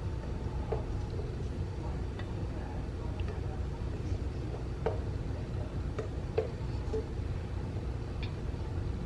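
A few faint taps and scrapes of a spatula against a bowl as a thick cheese sauce is poured into a slow cooker, over a steady low rumble.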